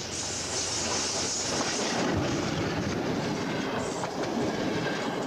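SU42 diesel-electric locomotive and its passenger coaches passing close by: the engine running and the wheels clattering over rail joints, with a few sharp knocks.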